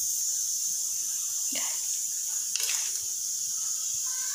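A steady background hiss with two faint light taps about a second apart, from rice flour being spooned into a steel bowl of cut okra.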